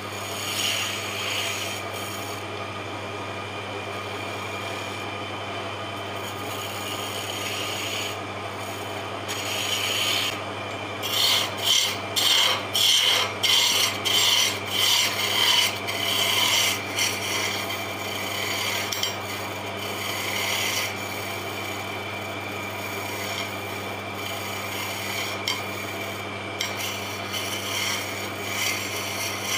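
Turning chisel cutting a spinning wooden spindle on a wood lathe: a continuous scraping hiss of shavings over the lathe's steady motor hum. About a third of the way in comes a run of louder, quick cutting strokes, roughly two a second, for several seconds.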